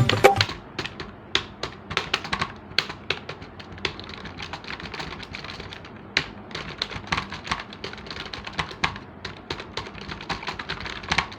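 Keys of a compact Bluetooth keyboard for mobile phones being typed on: quick, irregular plastic key clicks, several a second.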